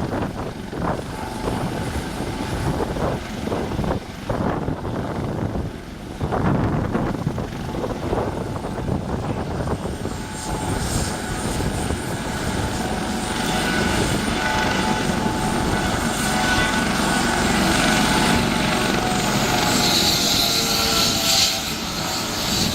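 Police helicopter running, with the chop of its rotor blades. From about halfway through, a steady turbine whine rises and grows louder.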